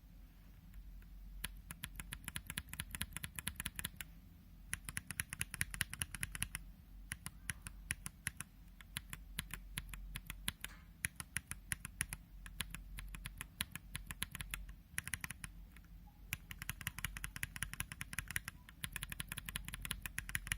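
Holy Panda and Zealio v2 tactile mechanical keyboard switches in a brass plate, pressed in quick runs of keystrokes a couple of seconds long with short pauses between. The switches are unlubed.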